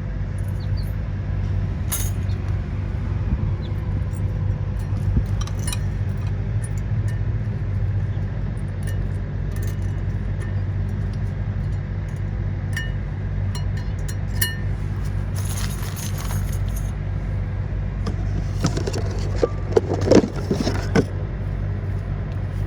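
Light metallic clicks and clinks of brake pad hardware clips being handled and pressed into a rear brake caliper bracket. There are scattered taps, then a busier run of clinks and knocks near the end. A steady low hum runs underneath.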